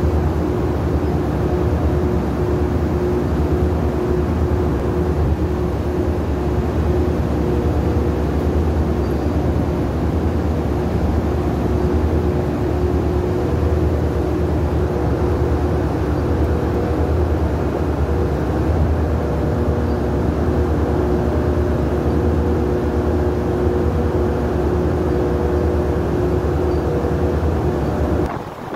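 Steady, loud drone of large machinery: a deep hum with a few steady higher tones over it. It drops in level near the end.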